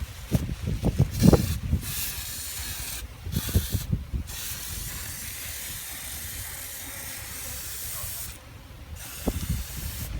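Liquid sprayer spraying in a hissing jet, pausing briefly about three and four seconds in and cutting off about eight seconds in. Low wind rumble on the microphone runs underneath, with a few knocks near the start and end.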